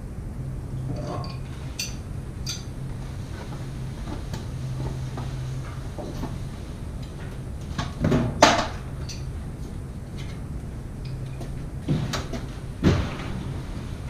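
A few scattered knocks and clunks from equipment being handled, loudest as two pairs of heavy clunks about eight and twelve seconds in, over a steady low hum.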